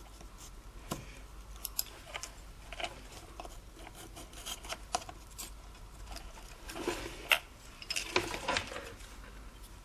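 Light scattered clicks, taps and rustles of small electronic parts and wires being handled during soldering, with a denser cluster of knocks and rustling about seven to eight and a half seconds in.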